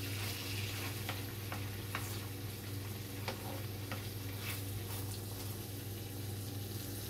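Chicken pieces sizzling in melted butter and olive oil in a frying pan, a steady hiss over a low hum. A few light clicks come as the pieces are moved around in the pan.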